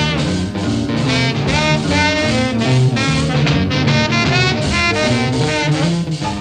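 Tenor saxophone solo on a 1951 rhythm-and-blues record, playing held notes with a wavering pitch over the band's rhythm section.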